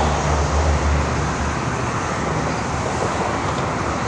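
Road traffic noise: a steady hiss of tyres on the highway, with a low engine rumble from a passing vehicle that fades about a second and a half in.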